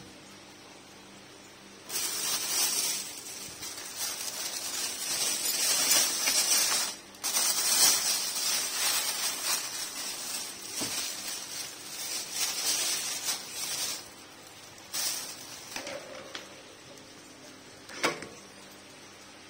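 Scraping and rustling handling noise as the wall fan's wire guard and blade are fitted, in a long stretch with a short break about seven seconds in, then a few brief scrapes and a sharp click near the end.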